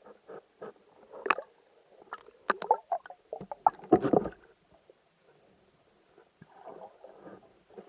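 Irregular clicks and knocks heard underwater, as a spearfisher's gear and camera move about, with a louder, deeper knock about four seconds in.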